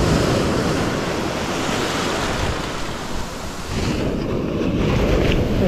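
Small waves breaking and surf washing up the sand around the feet, easing briefly about halfway through and then building again.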